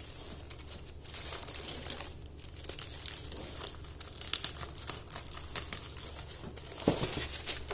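Crinkling and rustling of a roll of ready-made phyllo pastry sheets being unrolled by hand, with scattered sharp crackles.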